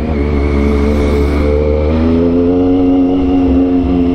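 Triumph Daytona 675's three-cylinder engine through a loud aftermarket sport exhaust, running at low revs. The engine note rises a little about halfway through and then holds steady.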